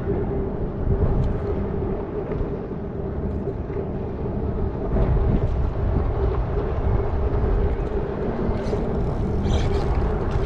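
Wind buffeting the microphone on open water: a dense low rumble with a steady faint hum under it. Near the end come a few short, sharp clicks.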